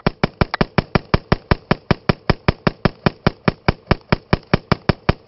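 AR-15 rifle in .223/5.56 fired as fast as the trigger can be pulled, a steady string of shots at about five a second that stops near the end.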